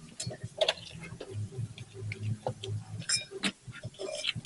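Irregular small clicks and light clinks of hands and tools working a locking clip or fitting loose on an engine.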